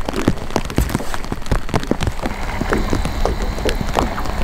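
Irregular patter and light knocks of water on and around a small fishing boat, a few to several a second, over a low steady background.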